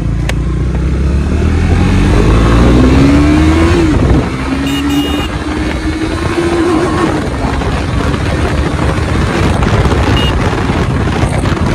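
KTM Duke 390 single-cylinder engine with an Austin Racing aftermarket exhaust under full-throttle acceleration. The revs climb, drop at a gear change about four seconds in, and climb again to about seven seconds. Heavy wind rush on the microphone then takes over as speed builds.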